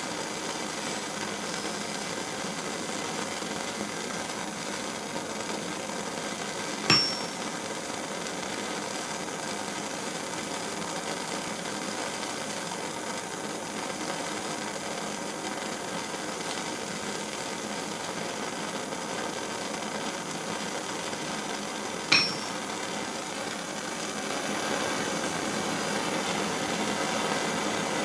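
Propane torch burning with a steady hiss, a little louder near the end. Two single ringing strikes of a steel hammer on a small steel anvil, about fifteen seconds apart.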